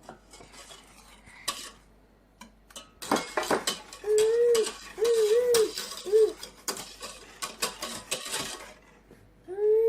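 Hand whisk beating eggs into the butter and sugar in a mixing bowl, a quick run of clinks against the bowl from about three seconds in until near the end. Three short, high, wavering voice-like calls sound over it around the middle, and another starts right at the end.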